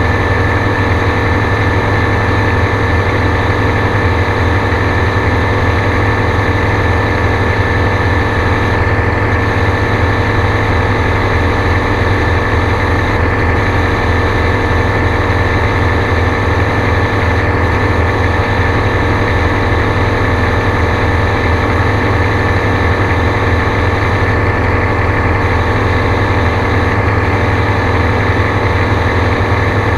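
Gyrocopter engine and propeller running steadily in flight: a loud, constant drone whose pitch holds unchanged throughout.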